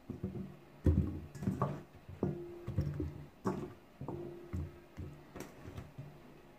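Background music of plucked guitar notes, one or two a second, each starting sharply and some held briefly.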